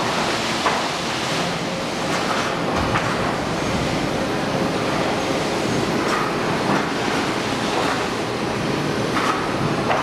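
Sawmill machinery running in a large hall: a loud, steady industrial din with irregular sharp knocks and clanks every few seconds.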